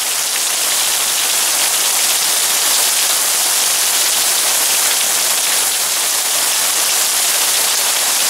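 Heavy rain pouring down in a thunderstorm downpour, a steady even hiss.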